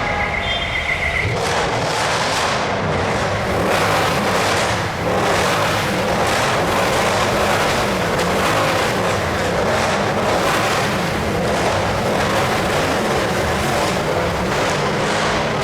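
Loud Mercedes-AMG V8 exhausts running and revving, a continuous dense engine and exhaust sound.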